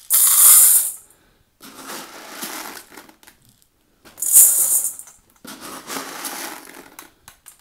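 Dry soybeans poured from a plastic half-cup measure into a stainless steel bowl, a loud rattling pour at the start and another about four seconds in. Between the pours, quieter rattling as the cup scoops more beans from a plastic jar.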